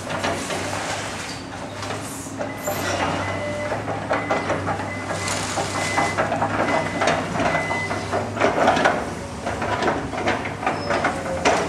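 Demolition of a wood-frame house by heavy machinery: a diesel engine runs steadily under irregular cracking and crunching of splintering timber and debris.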